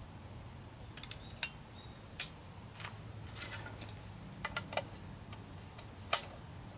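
Sharp, irregular clicks of a take-apart paddle being assembled: aluminium shaft sections and carbon blades knocking and clicking as they are pushed together, the loudest click near the end.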